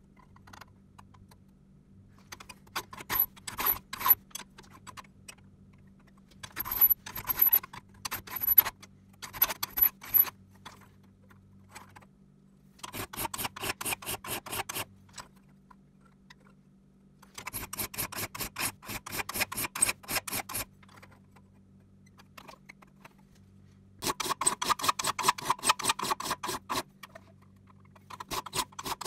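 Flat file drawn along the tips of a rusty crosscut saw's teeth to joint them level, a rapid run of scraping metal clicks as the file passes over each tooth. It comes in repeated runs of two or three seconds with pauses between.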